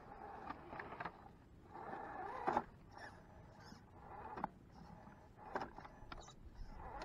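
Axial SCX10 III early Ford Bronco RC rock crawler's electric motor and gear drive whining in short bursts of throttle as it climbs a rock ledge, with tyres scraping and clicking on the rock; a sharp click about two and a half seconds in is the loudest sound.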